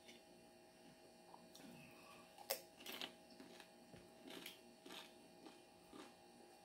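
Faint chewing of a crunchy hard taco shell, a few short crackles and mouth clicks over a steady low electrical hum, the sharpest click about two and a half seconds in.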